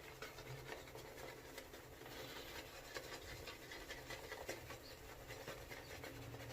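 Vie Long horsehair shaving brush whipping soap into lather in a bowl: a faint, fast, scratchy swishing of bristles on the bowl, full of tiny irregular ticks.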